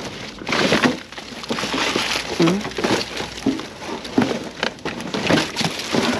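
Gloved hands rummaging through discarded cardboard produce boxes and a plastic crate in a dumpster. Cardboard scrapes and crumples with a steady run of knocks and rustles, and a few short squeaks.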